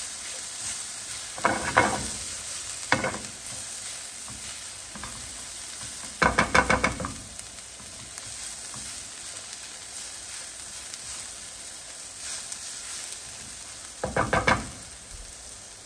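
Sliced mushrooms and chopped onions sizzling in a hot nonstick frying pan while a silicone spatula stirs them, the onions softening toward translucent. Every so often the spatula scrapes across the pan in a quick run of strokes, loudest about six seconds in and again near the end.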